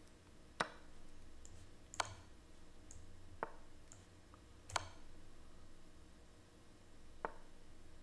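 Five sharp clicks at uneven spacing, with fainter high ticks between them. These are the clicks of online chess being played on a computer as pieces are moved, over a faint low hum.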